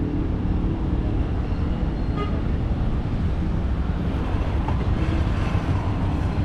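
Steady low rumble of motor vehicle engines and traffic, with a brief high tone about two seconds in.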